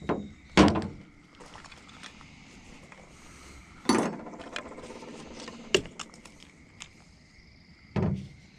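A few sharp clunks and knocks a couple of seconds apart, with quieter rattling and handling noise between: loose car parts and tools being picked up and set down.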